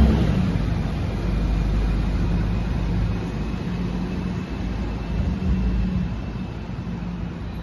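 Low, steady rumble of motor traffic with a faint hum in it, slowly fading.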